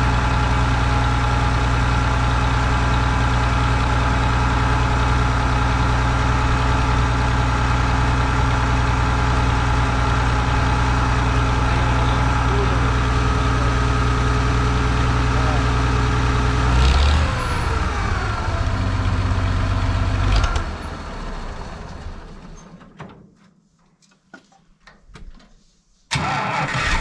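Farmall 560's six-cylinder gasoline engine idling steadily, running on a newly fitted electronic-ignition distributor. Its speed drops about 17 seconds in, and it cuts off about three seconds later.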